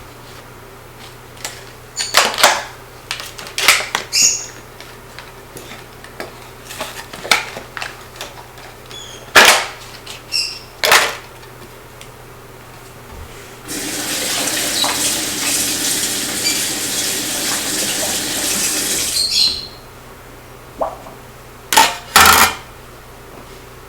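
Dishes and utensils clinking and knocking, with a water tap running for about five seconds in the middle.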